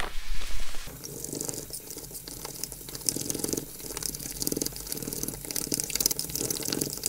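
Fork stirring egg and flour into a thick dumpling batter in a ceramic bowl: wet stirring strokes about two a second, starting about a second in.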